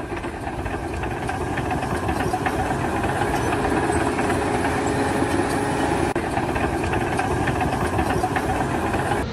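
A machine or engine running steadily, a dense mechanical noise without a clear rhythm.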